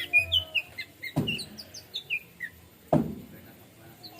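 Orange-headed thrush singing: a quick run of short, varied high chirping notes. Two sharp knocks come a little under two seconds apart.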